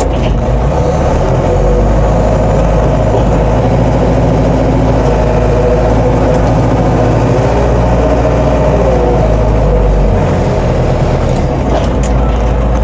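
Collins Teleshift 404 farm loader's diesel engine running under load, heard from inside the cab, as its hydraulics drive a grain pusher up a heap of wheat. The engine note changes about ten seconds in.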